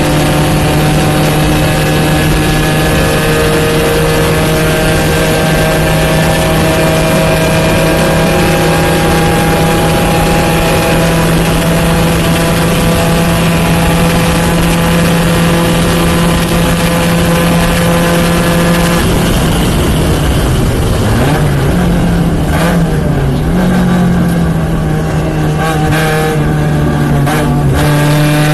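Porsche 944 race car's four-cylinder engine running loud at steady high revs for most of the stretch; a little past two-thirds of the way through the revs drop and rise a couple of times, then hold steady again near the end.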